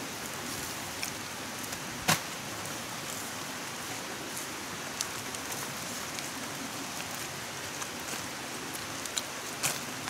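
Steady rain-like hiss with scattered sharp ticks, like drops striking something, and one louder click about two seconds in.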